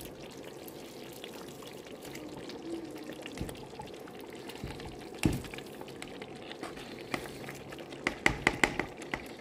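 A pot of tomato-based soup simmering with a soft, steady bubbling as washed spinach is tipped in from a bowl. There is a single sharp knock about halfway through and a quick run of sharp clicks near the end.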